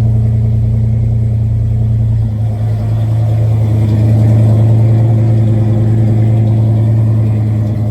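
1970 Chevrolet Chevelle engine idling steadily, still warming up after a cold start. The idle sags briefly a couple of seconds in, then picks up slightly.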